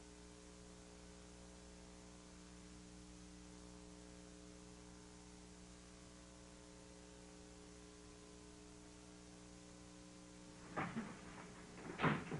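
Faint, steady electrical mains hum with no speech. Two short, louder sounds break in near the end.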